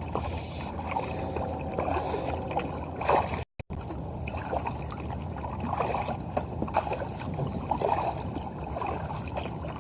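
Kayak paddle strokes dipping into calm water, with splashing and dripping between strokes. The sound cuts out completely for a moment a few seconds in.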